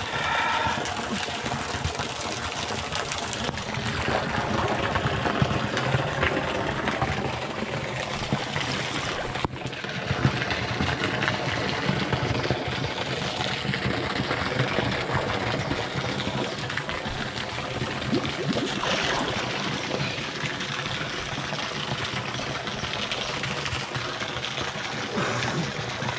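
Swimming-pool water sloshing and trickling around people in the pool, with a steady low hum underneath.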